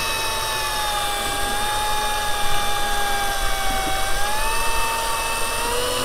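Electric fishing reel's motor winding in line under load, hauling a fish up from about 45 metres deep. It makes a steady high whine that dips slightly in pitch around the middle and rises again near the end.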